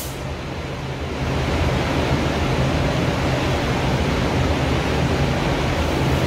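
Steady rushing air in an automotive paint spray booth, with a low hum under it, while the spray gun is worked. The sharp high hiss drops away right at the start, and the rushing grows louder about a second in.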